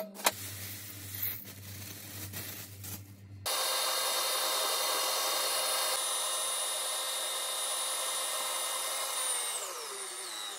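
A spoon clinks against a stainless-steel mixing bowl, then about three seconds in an electric stand mixer starts suddenly and runs steadily, its balloon whisk beating butter, sugar and egg yolks. Near the end the motor's whine falls in pitch.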